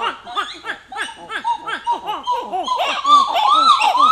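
Titi monkey (Callicebus) giving its loud song: a rapid run of short notes that rise and fall in pitch, low notes and higher notes overlapping, growing louder with higher, stronger notes from about three seconds in.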